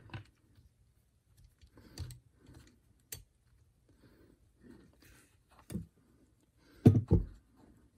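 Light clicks and taps of small metal parts being handled while a transfer-tube retainer is fitted to an aluminium TPI fuel rail. There is a sharp click about three seconds in and a louder double knock about a second before the end.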